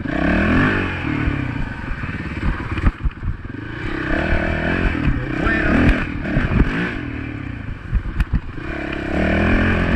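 Honda dirt bike engine revving up and down with the throttle, swelling several times, with occasional sharp knocks and rattles.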